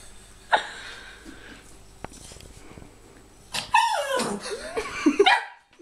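Small terrier yapping at turtles: one sharp yip about half a second in, then a quick run of barks and whines near the end.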